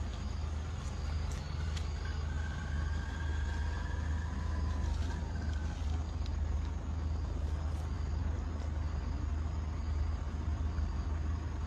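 Steady low rumble of a running motor vehicle with street noise, and a faint thin whine for a few seconds about two seconds in.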